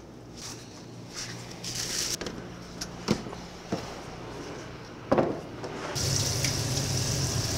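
Kitchen work: a few sharp knocks and clatters, then a steady rushing noise with a low hum that starts suddenly about six seconds in.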